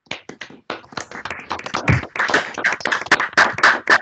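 Applause from several people clapping into their video-call microphones: a few scattered claps at first, thickening into dense clapping from about two seconds in.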